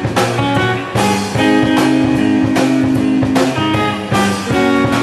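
Live band playing the instrumental intro of a song, led by guitar chords strummed in a steady rhythm.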